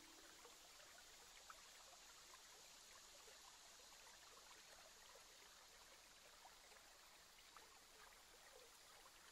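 Near silence: a faint, steady rush of water from a river weir, with a few tiny ticks.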